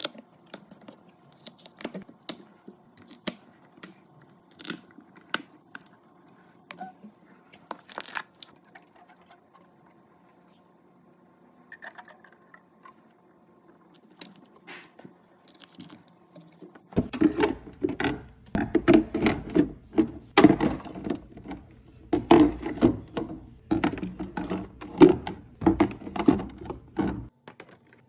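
Items being handled and put into a mini fridge while it is cleaned out and stocked: scattered clicks, knocks and scrapes of containers and packages. The handling gets louder and busier about two-thirds of the way through.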